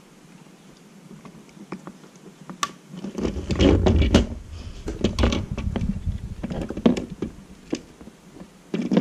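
Plastic Lego pieces clicking and knocking as a piece is pressed onto a model and the model is handled. There are faint, sparse clicks at first, then from about three seconds in a busier run of sharp clicks with low bumps.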